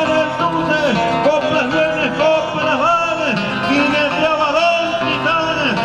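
A voice singing a folk song with guitar accompaniment, in the improvised sung verse of the payadores who perform between rides.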